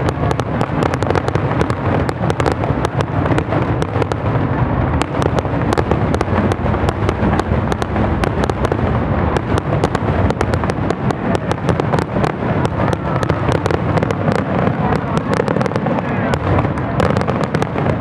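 Aerial fireworks shells bursting in a dense, unbroken barrage of bangs and crackle, the rapid-fire volley of a display's finale.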